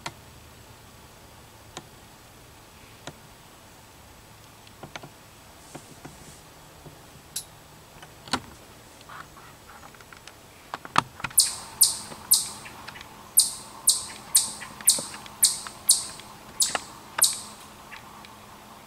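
A chipmunk giving a run of sharp, high-pitched chips, about eleven at roughly two a second, starting a little past halfway. Before that there are only scattered faint ticks.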